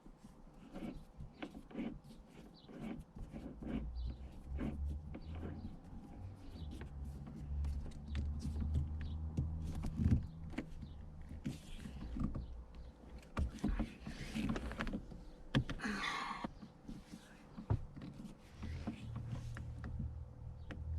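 Shift knob being fitted onto a Toyota Tacoma's gear shifter by hand: scattered clicks, knocks and rustling, with a low hum underneath. A longer rustle comes about two-thirds of the way through.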